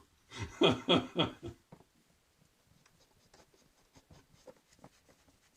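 A few words from a man, then faint, irregular scratching and light clicks of small hand work, tool and metal parts handled at a bench.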